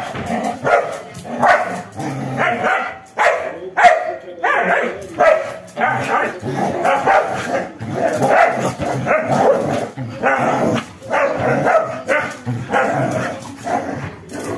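Two dogs barking at each other in rough play, a rapid unbroken run of short barks about two a second.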